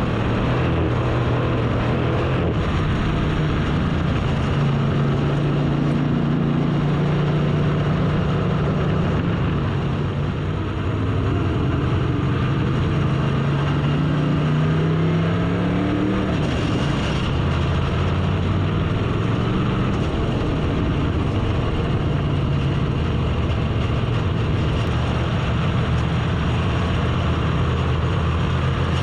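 Race car engine noise at speed on the track, pitch climbing and falling with the throttle, with a rising run about two-thirds of the way through.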